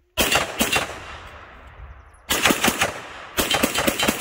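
Rapid gunfire: three quick strings of sharp shots, near the start, about two seconds in and near the end, each trailing off in a long echo.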